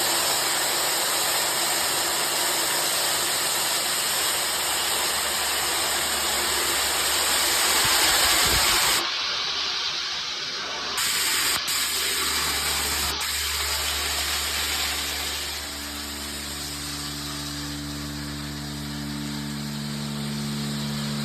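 Vacuum running with a loud rushing hiss of air through its hose as it sucks up gravel. About nine seconds in the hiss drops off abruptly, and later a steady low machine hum comes through.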